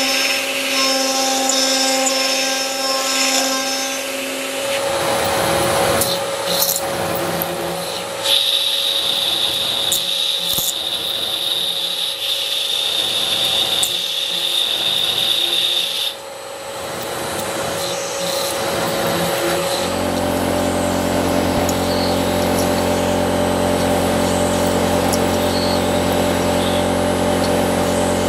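CNC router spindle running and cutting 20 mm aluminium plate: a steady spindle whine over the noise of the cutter in the metal, drilling holes in the later part. The pitch and tone change several times as the machining steps change.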